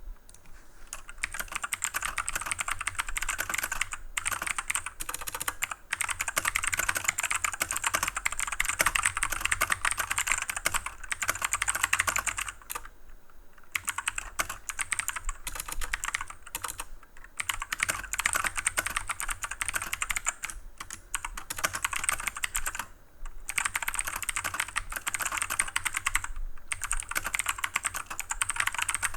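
Cooler Master CK530 mechanical keyboard with clicky Gateron Blue switches, typed on fast and steadily in a dense stream of sharp clicks, with short pauses between bursts.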